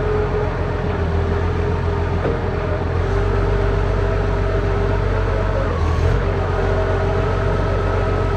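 Caterpillar forklift engine running steadily, with a steady whine over the hum that dips briefly in pitch about six seconds in.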